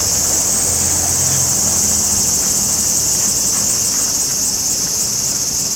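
Insects droning in a loud, steady, high-pitched chorus, with a faint pulsing coming into it about halfway through.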